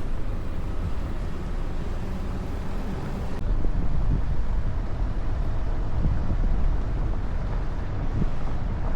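Steady low rumble of a moving vehicle on the road, growing slightly louder about three and a half seconds in.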